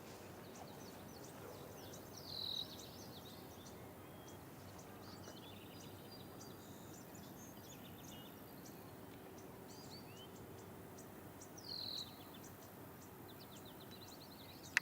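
Birds chirping and calling over steady outdoor background noise, with two louder descending calls, one about two seconds in and one near twelve seconds, and a sharp click at the very end.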